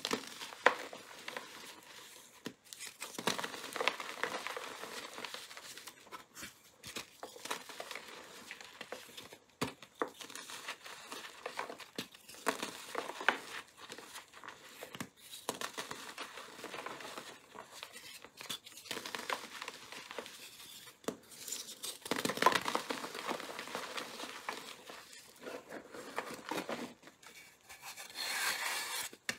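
Blocks of glitter-coated gym chalk crushed and crumbled by hand, with dry crunching and crackling and loose chalk powder rustling between the fingers. The sound comes in irregular bursts of crisp snaps.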